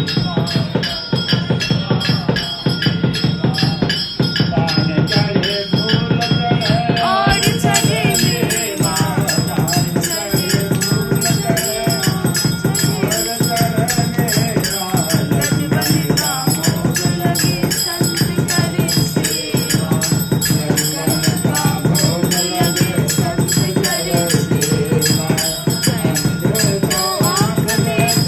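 Hindu aarti in progress: voices singing a devotional hymn over a fast, steady jangle of bells and rattling percussion.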